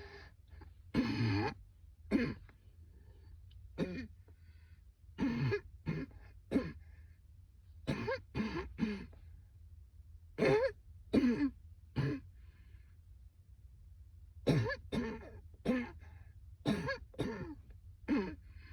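A woman's persistent coughing fit: about twenty coughs, often two or three in quick succession, with short pauses between the bouts.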